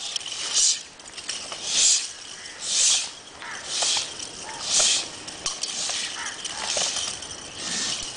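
Nunchaku swishing through the air as a group strikes in unison, a short whoosh about once a second.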